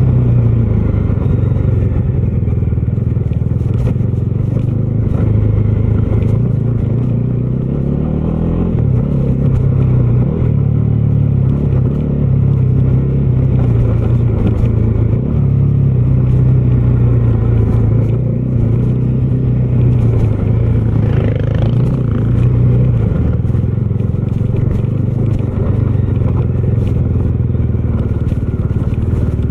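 Bajaj Dominar 250's single-cylinder engine running steadily on the move, its pitch dipping and rising a little a few times as the throttle is eased and opened, with scattered light clicks.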